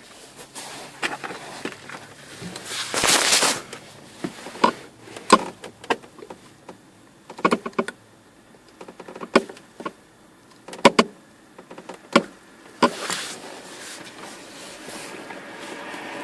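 Hands working in a truck's dash speaker opening: scattered clicks, taps and knocks of handling wires and plastic, with two brief scraping noises, about three seconds in and near the end.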